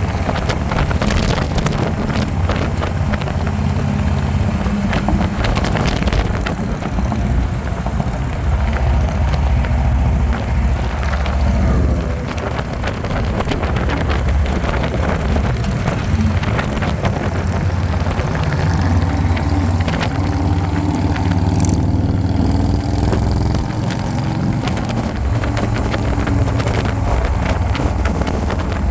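Harley-Davidson motorcycle running at road speed, its deep engine rumble mixed with heavy wind rush over the microphone.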